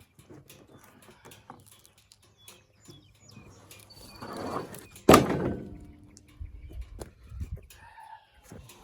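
Scattered light knocks and clicks, with one loud thump about five seconds in.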